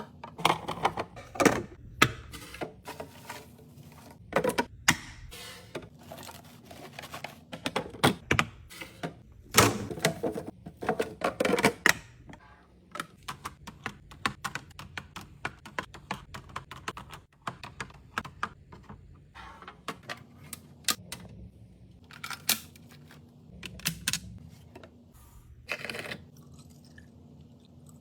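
Fridge-organising handling sounds: food containers and packaging being set down, opened and moved, a quick run of clicks, knocks and rustles. They are busiest in the first twelve seconds and sparser after.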